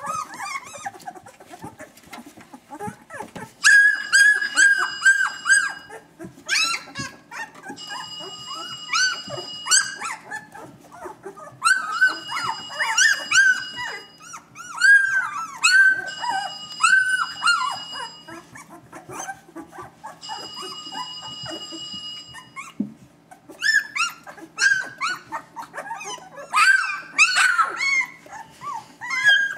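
Newborn Vizsla puppies, eyes still closed, squealing and whimpering: many thin, high cries overlapping, bending up and down in pitch. A steady high tone also comes and goes, about two seconds on, every four seconds through the middle.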